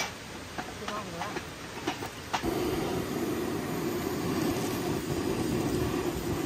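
A few knocks of split firewood pieces being laid on a stack. About two and a half seconds in, a handheld gas torch lights suddenly and runs with a steady loud hiss as its flame is held to the firewood.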